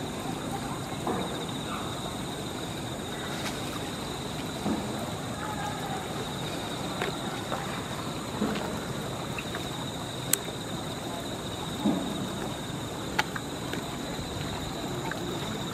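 Steady outdoor background noise: a low rumbling hiss under a constant high-pitched hum, with a few sharp clicks and faint short sounds scattered through it.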